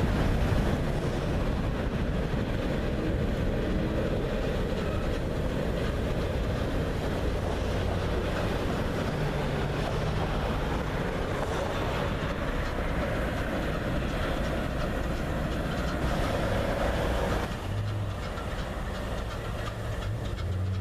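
Freight train rolling past: a diesel locomotive running and a long string of hopper cars with wheels clacking over the rails, a steady rumble that drops somewhat near the end.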